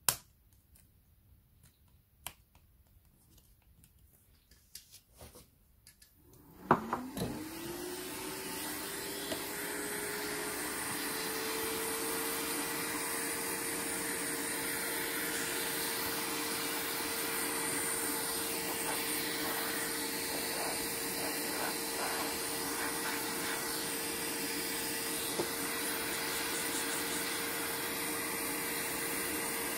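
A few faint clicks, then about seven seconds in a small electric motor switches on. Its whine rises quickly and settles into a steady running whine over a hiss of rushing air.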